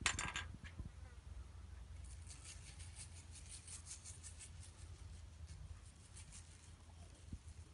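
Crushed glass frit sprinkled by hand from a small bowl onto a kiln shelf: a faint, dense patter of tiny granules ticking down for several seconds. It follows a single click at the start as a plastic spoon is set down on the wooden bench.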